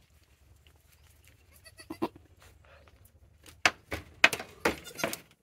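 Goats bleating just after a kid's birth: one short bleat about two seconds in, then several louder bleats in quick succession near the end.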